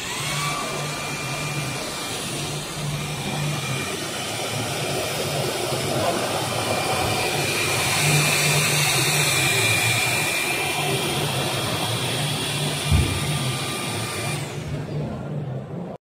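Hoover HF9 cordless stick vacuum in handheld mode with a crevice nozzle, switched on and quickly spinning up to a steady high whine over rushing air as it sucks up scattered debris. There is a single knock shortly before the motor shuts off and winds down near the end.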